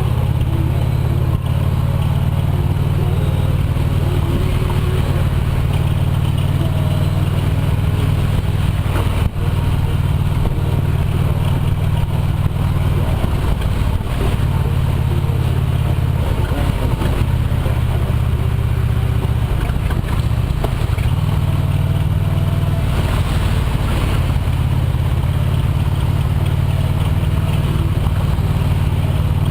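A steady, loud low rumble of a running vehicle, engine and road noise.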